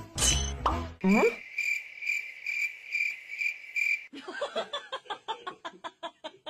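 Cricket chirping: a steady high chirp repeated about four times a second for nearly three seconds, after a short rising sweep. It gives way to a rapid run of short clicking sounds.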